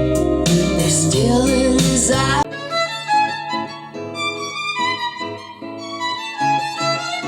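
Recorded music played through a pair of Mission ZX-1 loudspeakers: a full arrangement with deep bass and drums, which about two and a half seconds in cuts suddenly to a quieter passage with no bass.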